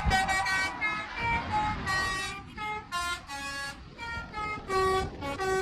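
Telolet musical horns playing a quick tune of short notes that change pitch every fraction of a second, softer for a stretch about halfway through, over low road rumble.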